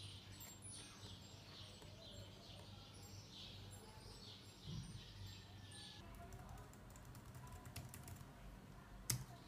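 Small 9 g hobby servos moving in short steps, a faint buzz with each step about two or three times a second. This gives way to scattered faint clicks and one sharper click near the end, over a steady low hum.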